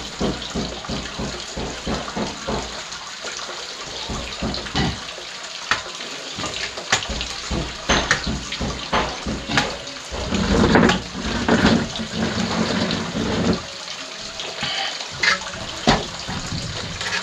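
Water splashing and running, with many short knocks and clicks throughout and a louder, fuller stretch of splashing about ten seconds in.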